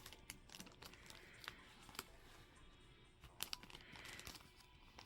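Faint crinkling and clicking of packaging being handled, with quiet background music.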